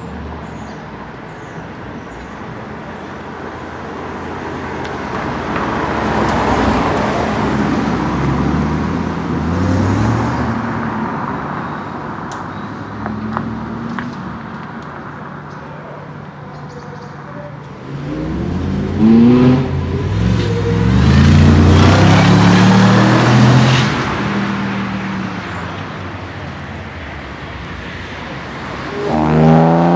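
Mercedes-Benz SLR McLaren Stirling Moss's supercharged V8 accelerating away several times, its pitch climbing in steps through the gears. The loudest run comes in the second half, and another rising rev starts near the end.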